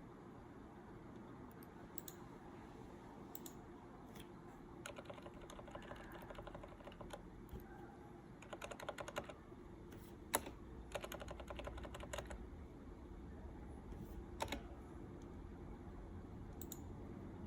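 Computer keyboard keys being pressed, faint: scattered single keystrokes and a few short quick runs of typing, with a couple of louder single clicks past the middle.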